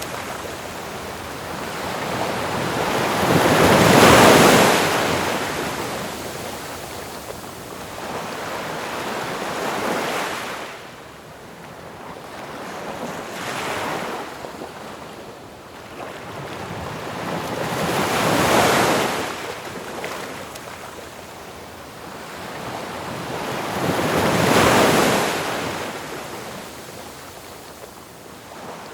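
Ocean surf: waves breaking and washing in, the hiss swelling and fading five times, every four to six seconds, loudest about four seconds in.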